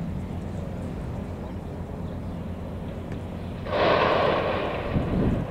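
Steady low rumble of wind on the microphone by open water. Nearly four seconds in, a sudden loud rushing hiss breaks in for about a second and a half and then dies away.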